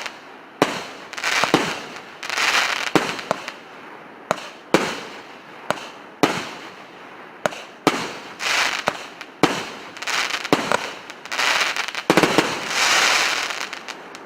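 A 37-shot, 1.2-inch consumer firework cake firing in quick succession: sharp launch thumps and bursts about once a second, mixed with several longer spells of crackling hiss from the crackling stars. The last spell fades out at the end.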